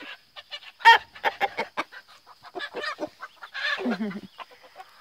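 Chickens clucking in a rapid run of short calls, with a sharp squawk about a second in and a longer, falling call just before four seconds in.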